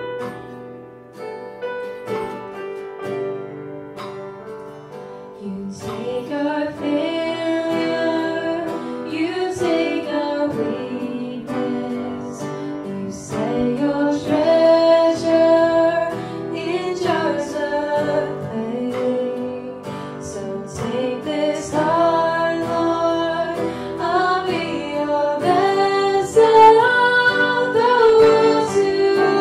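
A worship song: plucked guitar accompaniment alone at first, then a singer's voice carrying the melody over it from about six seconds in.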